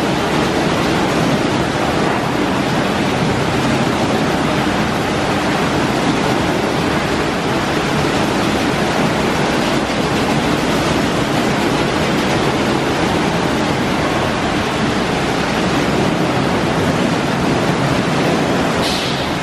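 Ryko SoftGloss XS soft-touch rollover car wash running, its spinning brushes scrubbing a car: a loud, steady rushing noise.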